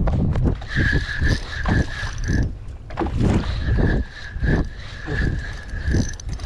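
Wind buffeting the microphone and water slapping against a small boat, in irregular low thumps. A steady high whine pulses through most of it and drops out for about a second near the middle.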